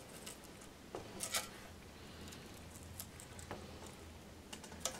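Cured silicone mold putty being peeled by hand off a statue base: faint scattered peeling and crackling noises with a few soft clicks, the loudest a little over a second in.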